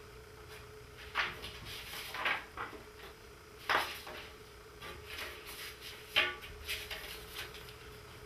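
A handful of irregular knocks and rustles, the loudest about a second in, near four seconds and about six seconds in, over a faint steady hum.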